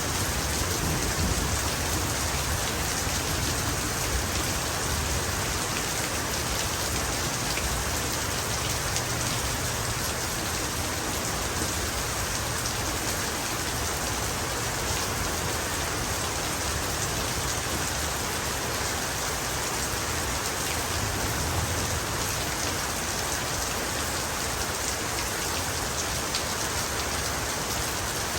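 Heavy rain falling steadily: a dense, even hiss with fine drop patter and a low rumble underneath, unchanging throughout.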